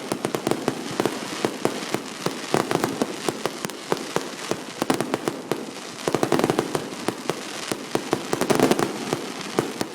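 Fireworks going off in a rapid, irregular string of sharp pops and crackles, growing denser and louder in clusters, most of all about six and eight and a half seconds in.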